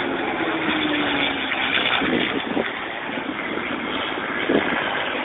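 P-51 Mustang's V-12 engine droning as the plane flies past at a distance, its pitch falling slightly over the first second, under a steady hiss.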